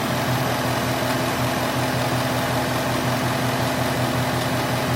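Ford Mustang GT's 5.0-litre Coyote V8 idling steadily, with its ticking not as loud: a tick the owner takes for the harmless Coyote 'typewriter' tick rather than a rocker arm or timing chain guide fault.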